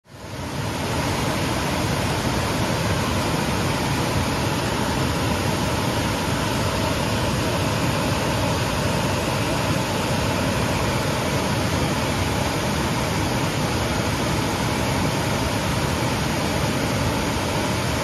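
Waterfall: a steady, even rush of falling water, fading in over the first second.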